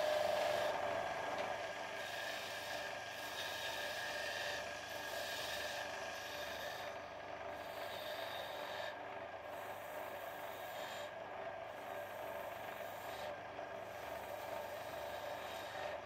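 Wood lathe running with a steady hum while a hand-held turning chisel cuts the spinning wooden blank, a continuous scraping hiss. The hiss breaks off briefly a few times in the second half.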